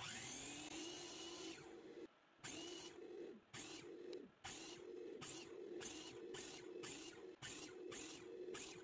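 A miter saw starts up with a rising whine, then runs as its blade makes a quick series of shallow kerf cuts across a strip of pallet wood. In the second half the cuts come about three a second over the steady motor tone.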